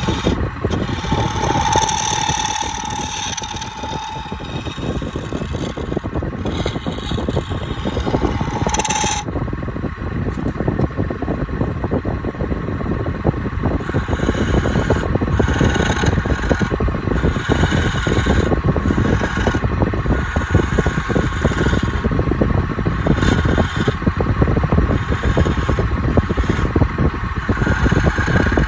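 Wood lathe running with a steady motor whine while a tool scrapes against the turning palm wood, giving a continuous rough rasping that comes and goes in strength.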